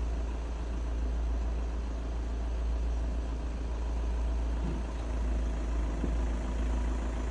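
A vehicle's steady low rumble, running evenly without speech over it.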